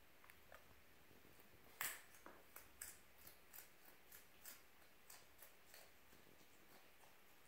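Fennec fox chewing a piece of carrot: a run of faint, crisp crunching clicks, two or three a second, the first the loudest, about two seconds in.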